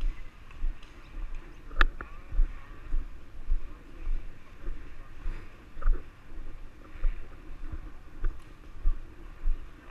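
Footsteps of a player walking with body-worn gear, thudding about twice a second, with one sharp click about two seconds in.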